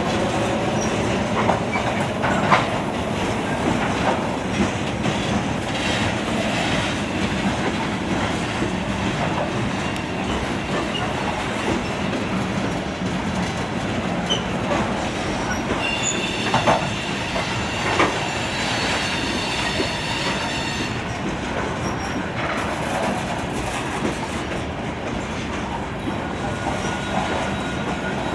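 A coal train's aluminum coal hopper cars rolling past, with a steady rumble of steel wheels on rail and scattered clicks and knocks. A high wheel squeal sounds from about sixteen to twenty-one seconds in.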